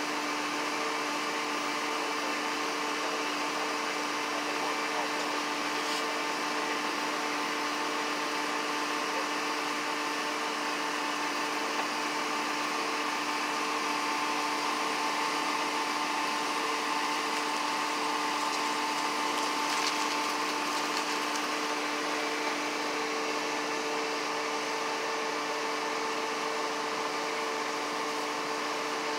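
A steady mechanical hum with a constant hiss, holding two unchanging low tones and a higher tone that grows a little stronger midway.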